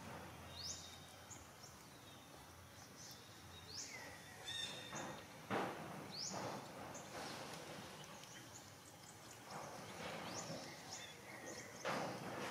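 Faint outdoor ambience: a bird gives a short, high, rising call every two to three seconds, with a few brief noisy sounds in between.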